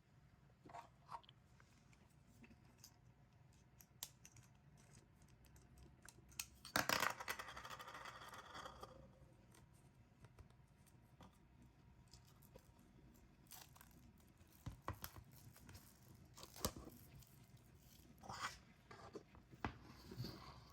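Plastic shrink wrap being torn open and peeled off an album box: one louder ripping tear lasting about two seconds, about seven seconds in, with scattered small crinkles and taps around it.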